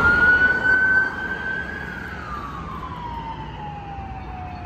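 Emergency vehicle siren on wail: the pitch climbs and holds for about a second, then falls slowly over about three seconds to a low point at the end.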